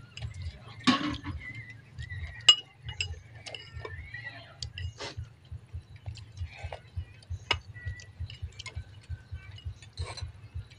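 Metal spoons clinking and tapping against ceramic soup bowls during a meal: a scatter of sharp, irregular clinks, the loudest about two and a half seconds in.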